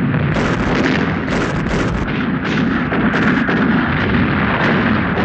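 Battle sound: artillery guns firing and shells exploding, about a dozen sharp reports in quick, irregular succession over a continuous rumble.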